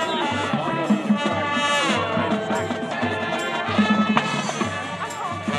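High school marching band playing: brass chords over a steady low drum beat, with a rising run about two seconds in.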